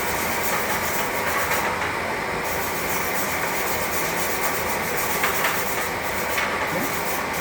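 Aluminium welding arc under pure argon shielding gas, burning with a steady crackling hiss.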